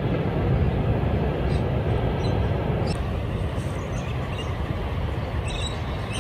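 Wind buffeting the microphone: a steady, fluctuating low rumble. A few faint, brief high bird chirps come through.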